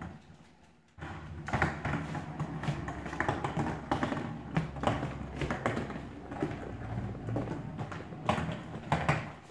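Skateboard rolling on a hardwood floor with a low rumble from its wheels, mixed with many sharp taps and clicks.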